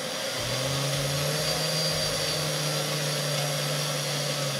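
Small brushed DC motor, a starter-type motor with a pinion gear on its nose, spun by a homemade PWM motor controller as the throttle is pressed: it speeds up over the first half second, then runs with a steady whir.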